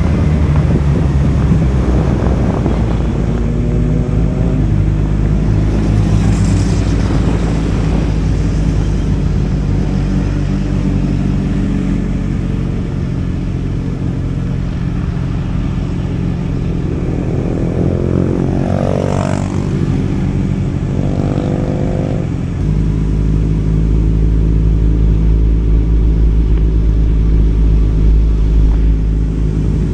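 Motorcycle engine running steadily at road speed. About two-thirds of the way through, an engine's pitch briefly rises and falls.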